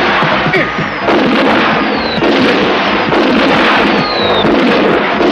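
A continuous barrage of explosions and crackling bangs, with a high whistle falling in pitch twice, at about two seconds and again near four seconds.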